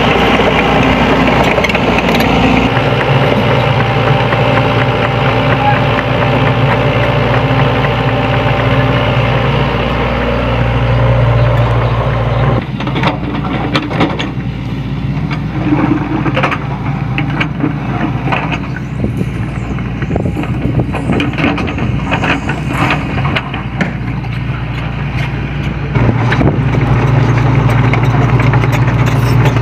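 SANY SY75C mini excavator's diesel engine running with a steady deep drone while it works. About twelve seconds in the engine drops lower and a series of sharp knocks and clanks comes through, then the engine comes back up near the end.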